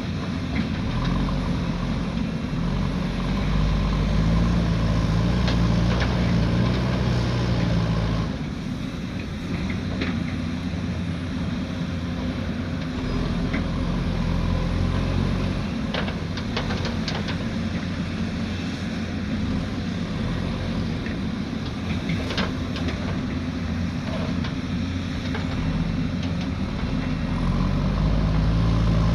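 Diesel engine of a heavy earthmoving machine running and working, building up over the first few seconds, easing off about eight seconds in and rising again near the end. Several sharp knocks come through over the engine.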